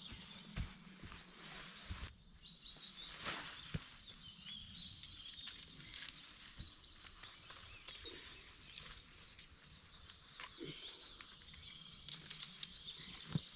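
Small songbirds chirping and twittering in quick short phrases, with a few soft knocks and rustles.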